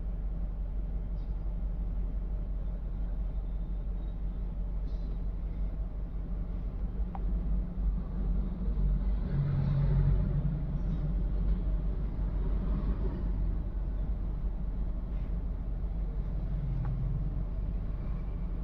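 VW Vento petrol engine idling rough with a misfire, running as a steady low rumble that swells louder briefly around the middle. The misfire is on cylinder 1, whose fuel injector is getting no current.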